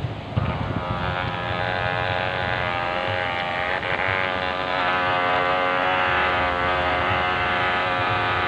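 Electric motor of a New Bright radio-controlled toy speedboat whining steadily at speed, with water churning from its propeller. The motor starts about half a second in, and its pitch rises a little partway through.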